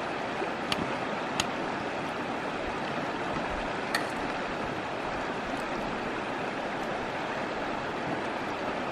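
Steady rushing of a shallow stream flowing over rocks, with a few short sharp clicks: two close together near the start and one about four seconds in.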